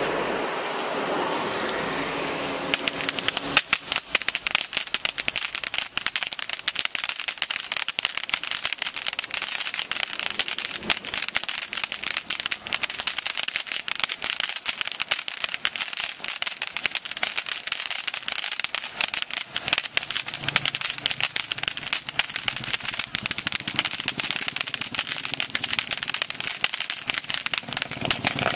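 Large Rajkala Dandiya Peacock ground fountain firework spraying sparks. It hisses at first, then from about three seconds in it crackles densely with sharp pops.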